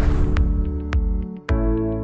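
Electronic background music with sustained chords and a steady beat. A whooshing swell fades out over the first half second, and a new chord comes in about one and a half seconds in.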